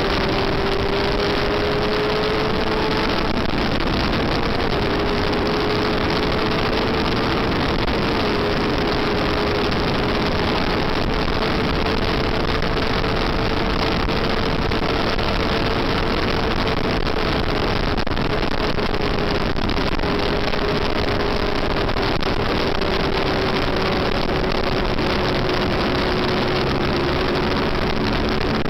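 Onboard sound of a Yamaha FZR400 race bike's inline-four engine held at high revs through a long corner, its pitch staying nearly steady with only small drifts, under heavy wind rush on the microphone.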